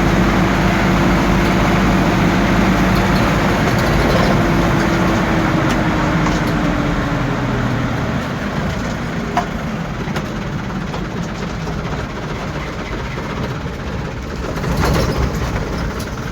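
Diesel light-truck engine running hard at steady high revs, its pitch easing down about seven seconds in, then road noise with a short click about nine seconds in and a swell near the end.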